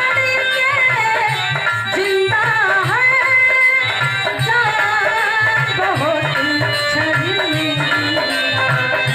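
A woman singing an Indian folk song with ornamented, gliding melody over a steady beat on an Indian hand drum.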